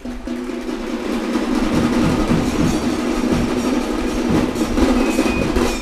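Large audience applauding.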